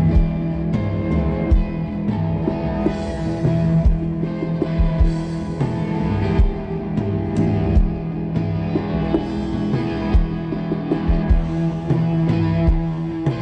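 Live amplified rock music from a band on stage: electric guitar over a held low note, with irregular low thuds.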